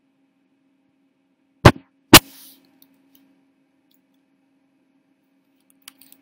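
Two sharp, loud clicks of a computer keyboard or mouse about half a second apart, a couple of seconds in, then a few faint ticks near the end, over a faint steady hum.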